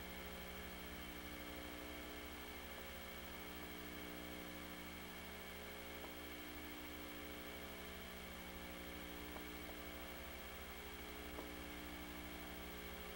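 Low, steady electrical hum with hiss, and a few faint ticks.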